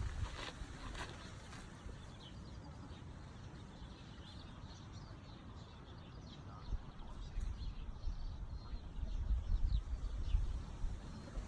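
Outdoor background: a low wind rumble on the microphone, with faint, scattered bird chirps throughout.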